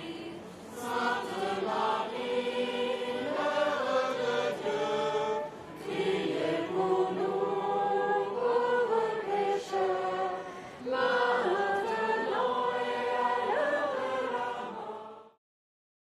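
A crowd of people singing together in long held phrases, with short breaks about five and a half and ten and a half seconds in; the singing cuts off suddenly just before the end.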